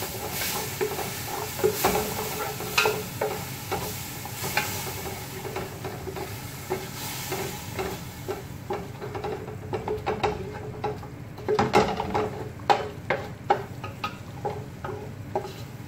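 A long-handled utensil stirring and scraping through a yogurt, onion and spice mixture in a large metal stockpot, with repeated sharp clacks against the pot. The mixture sizzles in the oil at first, and the sizzle dies down about halfway through.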